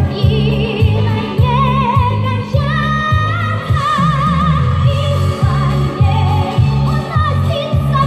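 A boy singing a held, wavering melody with vibrato into a microphone, over a backing track with a steady pulsing bass beat.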